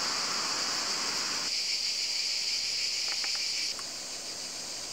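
Steady high-pitched chorus of cicadas, which grows quieter near the end.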